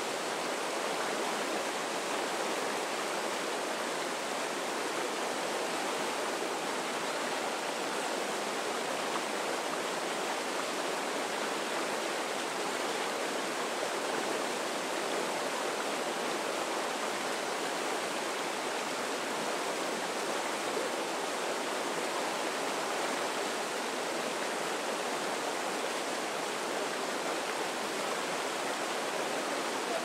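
Fast river rapids rushing over rocks: a steady, even rush of white water.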